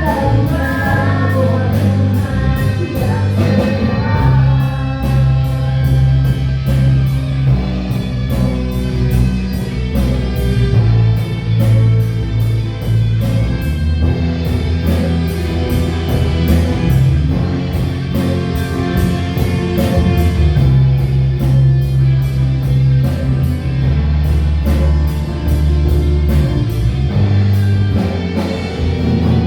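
Live amplified worship band playing a praise song: a drum kit with a steady cymbal beat, bass, and electric guitar. A voice sings the melody in the first few seconds.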